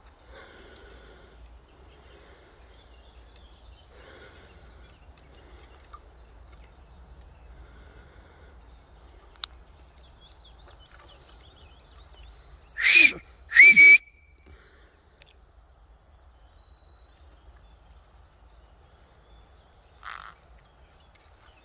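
White-bellied caique parrots calling: two loud, shrill whistled calls in quick succession a little past halfway, and a shorter call near the end, over a faint background with a few soft chirps.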